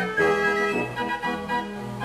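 89-key Marenghi fair organ playing a tune: a pipe melody over a bass and chord accompaniment.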